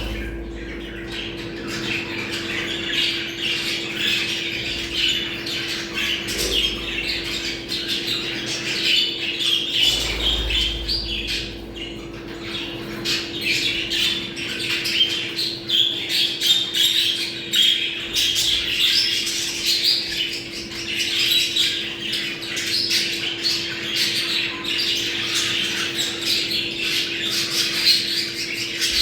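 Budgerigars chattering and warbling nonstop, dense squawks and chirps overlapping: the excited breeding-season chatter of budgies. A steady low hum runs underneath.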